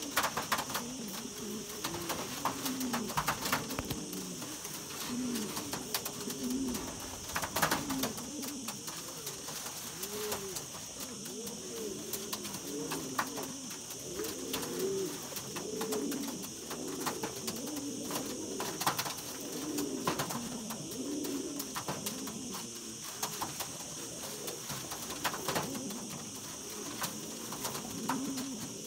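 Buchón Granadino pouter pigeons cooing over and over, an unbroken string of short rising-and-falling coos, with a few sharp clicks and a steady high hiss behind.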